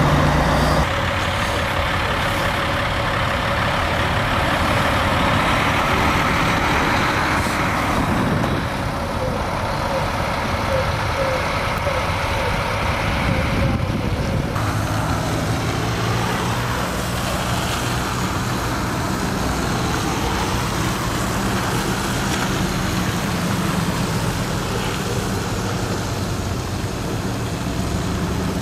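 Idling vehicle engines, among them a diesel semi truck, running steadily with a low hum and road noise; the mix shifts abruptly a few times.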